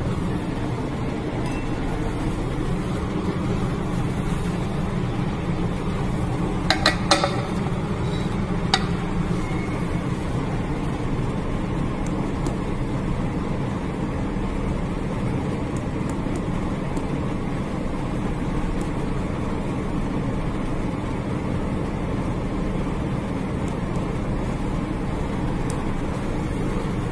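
A steady low machine hum, with a quick cluster of sharp clicks about seven seconds in and a single click nearly two seconds later, from handling a refrigerated benchtop centrifuge as it is loaded with tubes and set up.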